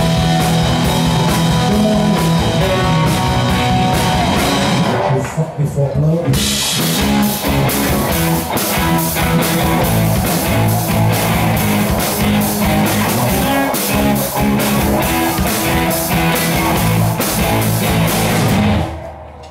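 Live rock band playing an instrumental passage on electric guitars, bass and drum kit, without vocals. The band drops out briefly about five seconds in, then comes back and stops suddenly near the end.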